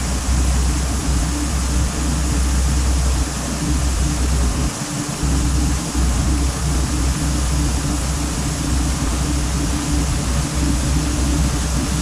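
A vehicle engine running steadily, with a heavy low rumble.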